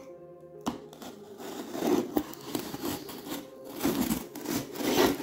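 Parcel packaging being handled and opened by hand: uneven crinkling, rustling and tearing, louder in a few bursts.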